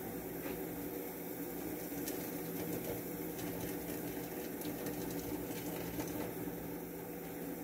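A steady low motor hum with a few faint clicks of handling.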